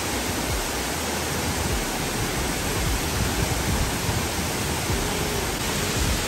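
Waterfall with a steady rush of falling water, an even hiss that stays level throughout.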